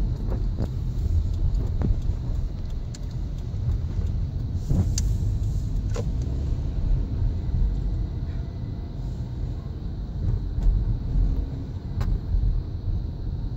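Steady low rumble of a car's engine and tyres heard from inside the cabin while driving, with a few faint clicks.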